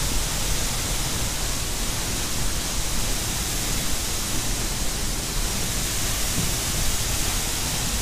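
Waterfall plunging onto rocks, heard from right beside the falling water: a loud, steady, even rush.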